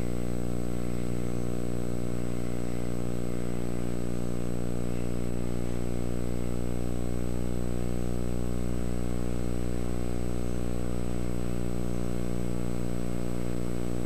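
Metal lathe running with a steady, even hum as a knurling tool is fed against the turning workpiece.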